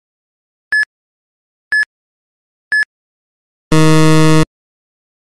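Quiz countdown timer sound effect: three short beeps, one a second, then a loud time-up buzzer lasting under a second, marking that the answer time has run out.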